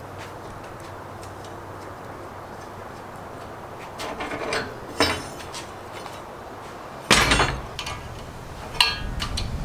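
Metal parts knocking and clinking as they are handled: a few separate clanks, the loudest about seven seconds in, over a low steady hum.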